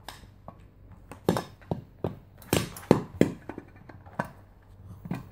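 A clear plastic cup being knocked and shoved about by a small dog: a series of about eight sharp, irregular knocks, each with a brief ringing tail.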